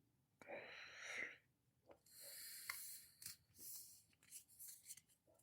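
Faint sounds of trading cards being handled and rustled, with a soft breath out about half a second in and a few light clicks.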